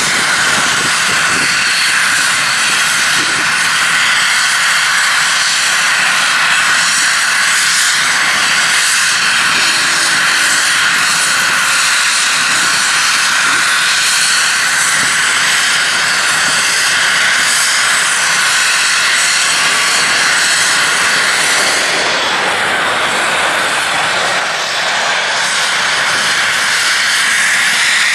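Cessna Citation Bravo's twin turbofan engines running at low power, a loud steady whine with rushing hiss as the business jet rolls slowly on the runway. Near the end the pitch starts to rise as the engines begin to spool up.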